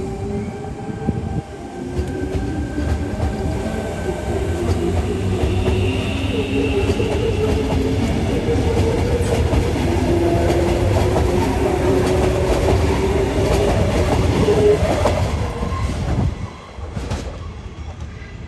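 Sydney Trains Tangara electric multiple unit (sets T24 and T11 coupled) accelerating away: the traction motors whine with several tones climbing in pitch over the wheels clicking on the rails, and the sound drops away suddenly about sixteen seconds in as the train clears.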